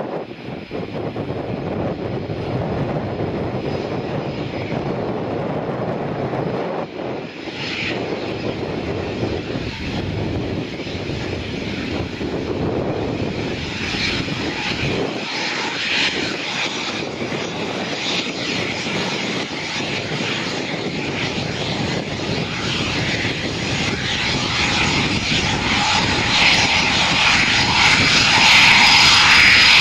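Eurofighter Typhoon's twin Eurojet EJ200 turbofans running at taxi power: a steady jet rush with a high-pitched whine. It grows louder over the last several seconds as the fighter taxis closer onto the runway.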